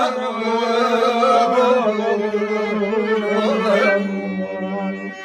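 Turkish folk song (türkü) in an instrumental passage between sung verses: a wavering melodic line with vibrato over a steady low drone.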